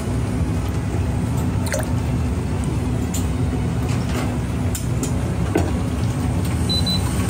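A metal ladle scooping soup from a stainless tub and pouring it into a metal saucepan, with liquid dripping and splashing and a few light clinks of ladle on metal. A steady low kitchen rumble runs underneath.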